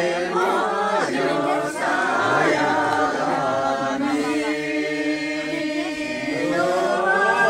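A group of voices singing a song together, drawn-out wavering melody lines overlapping.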